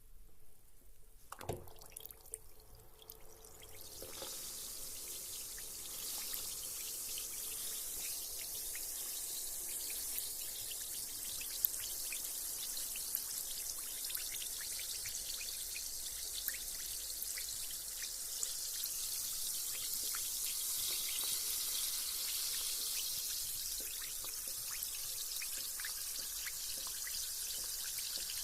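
A carbonated bath bomb hits the water with a low splash about a second and a half in. It then fizzes: a steady high hiss full of fine crackles that builds over the next few seconds and keeps going.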